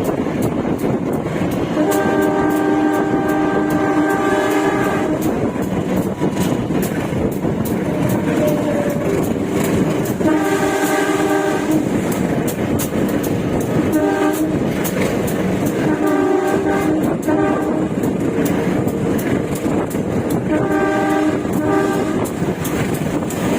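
Train horn sounded about five times over the running noise of a moving train: the first blast is about three seconds long and one is only a short toot. Wheels click over the rail joints throughout. The blasts are warnings for the many unguarded or broken-gated level crossings, heard from inside a passenger coach.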